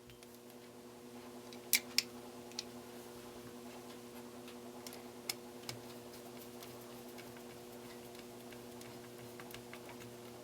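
A few sharp, scattered clicks of a plastic cordless-phone handset and its back cover being handled and taken apart, two close together about two seconds in, over a steady low hum.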